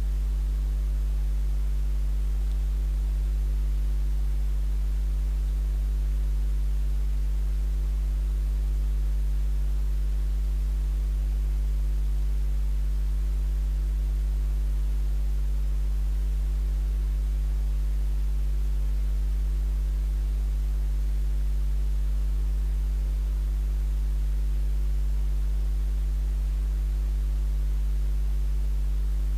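Steady low electrical mains hum, a constant buzz with a strong low tone and a ladder of fainter overtones above it.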